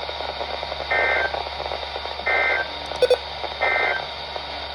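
Emergency Alert System end-of-message data burst sent three times, heard through a NOAA weather radio: three short buzzy squawks of two-tone digital code about 1.3 seconds apart over steady radio hiss. They mark the end of the alert. There is a brief click about three seconds in.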